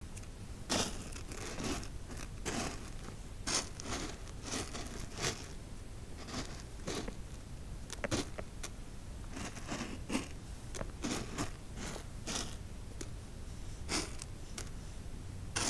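A string of short, irregular crunchy scraping rustles, roughly one a second, over a steady low hum.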